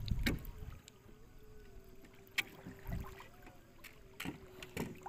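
A fish spear jabbing into shallow seawater while a person wades: scattered short splashes and sloshes with low thuds, over a faint steady hum.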